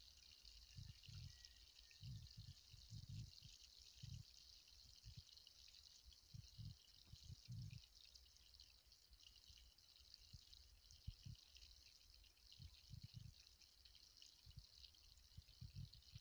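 Fish pieces shallow-frying in oil in a pan, giving a faint steady sizzle, with soft low bumps now and then.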